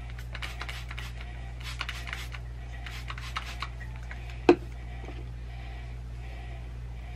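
Trigger spray bottle spritzing liquid onto hair in a run of quick hisses, then a few more a moment later. About four and a half seconds in comes a single sharp knock, the loudest sound.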